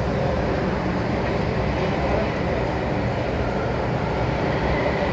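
Steady running noise of an MTR M-Train heard from inside the carriage: an even rumble and hiss that holds level throughout.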